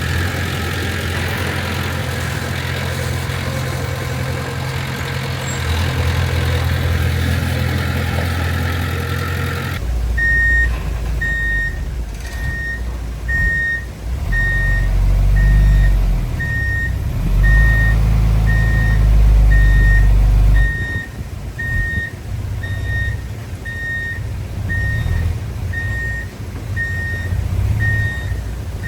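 Diesel engine of heavy earthmoving machinery running steadily. After an abrupt change about ten seconds in, a reversing alarm beeps about once a second over the low engine rumble, which swells and eases as the machine works.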